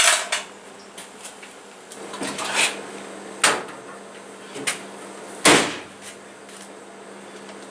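A clothes dryer door is shut with a single solid thump about two-thirds of the way through. Before it come rustling and a few lighter knocks as a blanket-wrapped gas tank is loaded into the drum.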